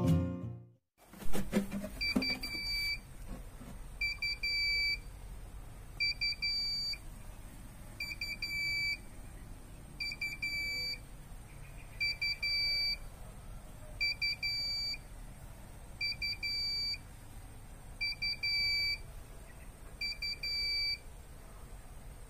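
Prepaid electricity token meter's low-credit alarm beeping: a high-pitched group of short beeps ending in a longer beep, repeated about every two seconds, stopping near the end.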